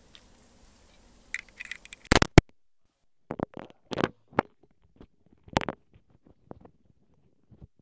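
Scattered clicks, knocks and scrapes. The loudest is a quick cluster of sharp knocks about two seconds in, with shorter knocks and scrapes following over the next few seconds.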